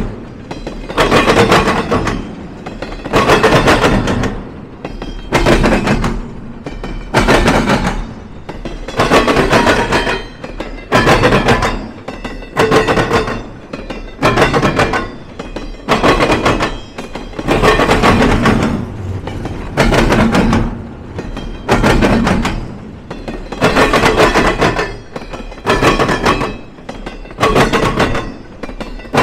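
Train cars rolling over a railroad diamond crossing, their wheels clattering across the crossing rails in a loud, regular burst about every two seconds.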